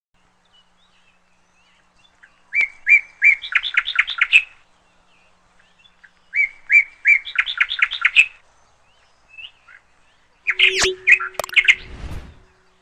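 A songbird singing two phrases about four seconds apart, each a few spaced notes that speed up into a quick run. Near the end comes a louder, busier burst of bird calls, joined by a low steady hum and a few clicks.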